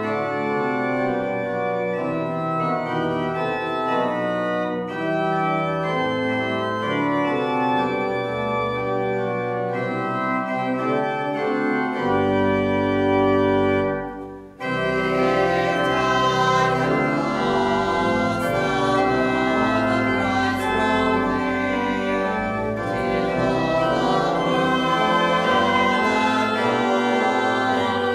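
Organ playing a hymn introduction in sustained chords, breaking off briefly about halfway through; then voices start singing the hymn over the organ accompaniment.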